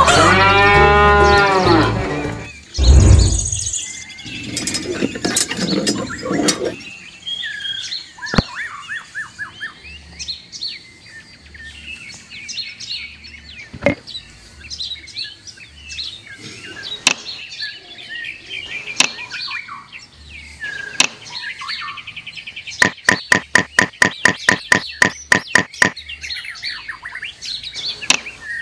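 A farm animal's loud wavering call for the first two seconds, then a low thud, and birds chirping faintly after it. Near the end comes a fast run of about a dozen even calls over three seconds.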